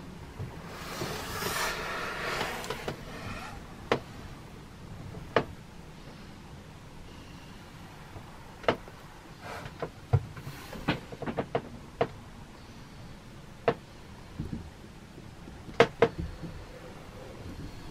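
A brief rustle, then a dozen or so scattered sharp clicks and knocks over a low steady background.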